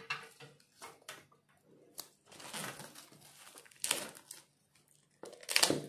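Plastic wrapping on a phone box being slit with a small box cutter and crinkling as it is worked loose: short scrapes and crackles, a sharp click about two seconds in, and louder crackles near the end.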